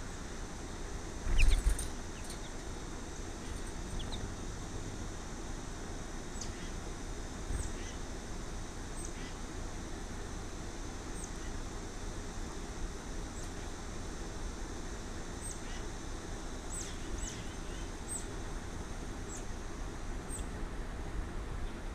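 Small birds chirping, scattered short high chirps that drop in pitch, over a steady hiss. A low thump about a second and a half in is the loudest sound, and there is a softer one near the middle.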